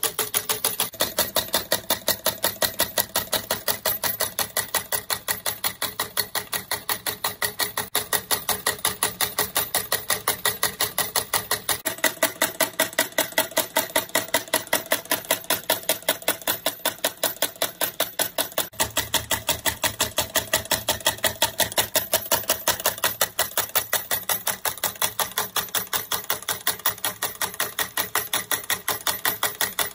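Homemade solenoid engine running: the solenoid clacks in a steady rhythm of about four strokes a second, its plunger driving a crank and a pulley flywheel.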